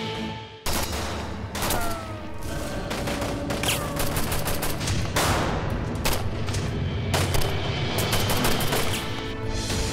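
Heavy automatic gunfire: a dense, unbroken run of rapid shots and bursts that starts abruptly about a second in.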